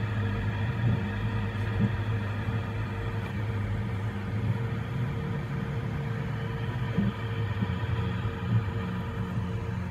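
Voron 3D printer printing: the steady whine and hum of its stepper motors and fans, with the low hum breaking and restarting irregularly and a few short louder blips as the toolhead makes quick small moves.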